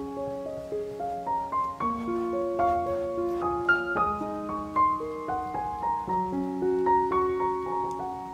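Background piano music: a slow melody of single notes over lower held notes.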